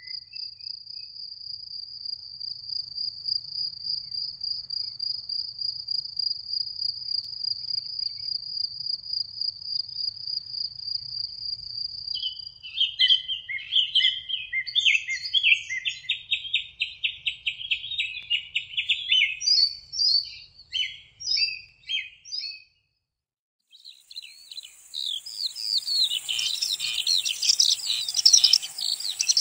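Meadow wildlife: a thin high note repeated about three times a second for some twelve seconds, then songbirds singing in short phrases. After a brief break, a dense chorus of birdsong over a high insect chirring.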